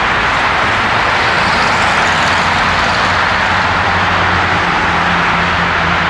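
Steady, loud roar of vehicle noise, with a low engine hum coming in about three seconds in.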